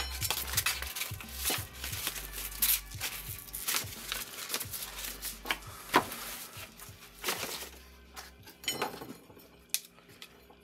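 Sandpaper sheets rustling and being shuffled by hand on a wooden workbench, with frequent sharp clicks and taps as small items are handled and set down. The handling quiets down near the end.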